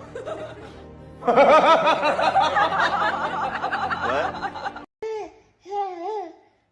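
Hearty laughter in rapid bursts for a few seconds, mixed with music, followed by a few short wavering vocal cries.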